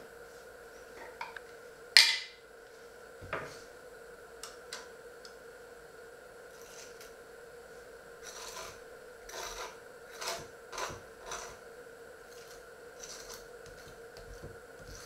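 A table knife spreading mustard on slices of bread, in a run of short scraping strokes through the second half. About two seconds in there is a single sharp clink of something set down on the table, the loudest sound, with a smaller knock just after.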